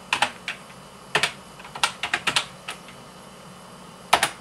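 Typing on a computer keyboard: a few scattered keystrokes, with a louder pair of clicks near the end.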